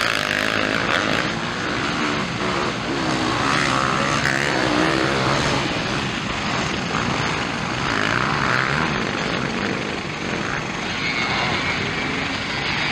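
Motocross dirt bike engines racing on track, revving hard, their pitch rising and falling again and again as riders accelerate through the turns.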